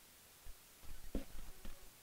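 Wooden spatula stirring thick meat stew in a large aluminium pot: a few soft knocks and scrapes, one about half a second in and a cluster through the middle.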